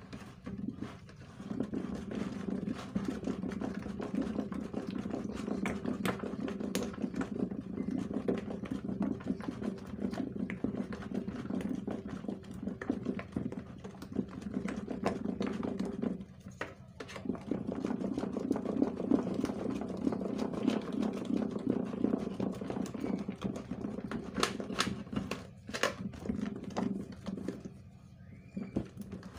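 Wooden stick stirring a thickening liquid-soap mixture (caustic soda and Nitrosol solution) fast in a plastic bowl: a continuous rapid churning, with short breaks about halfway through and again near the end.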